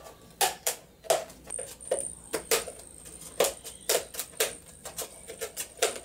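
Small scissors snipping through a thin plastic plate: a run of short, sharp cuts, about two or three a second and unevenly spaced.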